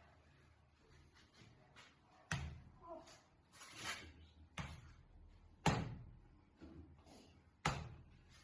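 A series of short, sharp thumps and knocks, about five, one to two seconds apart, the loudest about halfway through, from a hands-on manipulation of a seated patient's back.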